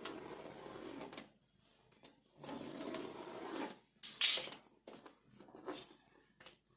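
Shrink-wrap plastic on a cardboard box rustling and scraping as hands and a box cutter work at it: two stretches of rough scraping, then a sharp crinkling rip about four seconds in, followed by a few light clicks.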